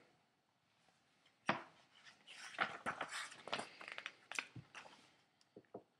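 A picture book being handled and its page turned: paper rustling with several sharp clicks and taps, beginning about one and a half seconds in.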